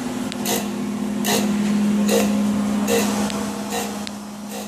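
Acra ASG-1020HS hydraulic surface grinder running: a steady hum with short bursts of grinding hiss about once a second, five in all, as the reciprocating table carries the work back and forth under the wheel.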